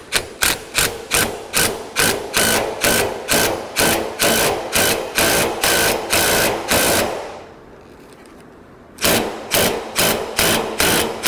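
Cordless impact wrench driving the forcing screw of a bearing puller in short bursts, about three bursts a second, to press the yoke off a drive shaft while checking that nothing binds. It stops for about a second and a half roughly seven seconds in, then starts again.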